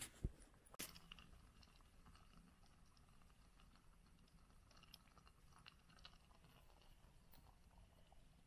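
Near silence: faint scattered ticks and crackles from a small wood campfire and a cookpot being handled. There is a single dull knock just after the start and a click about a second in.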